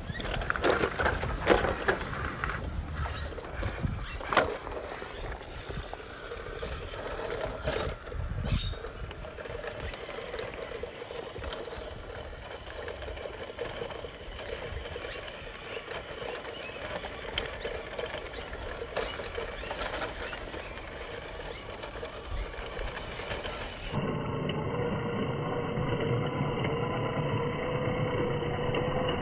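Small electric motor and gearbox of 1:16-scale RC trucks whining steadily as they crawl over dirt and rocks, with scattered clicks and knocks in the first few seconds. Near the end the sound turns duller and the whine steadier.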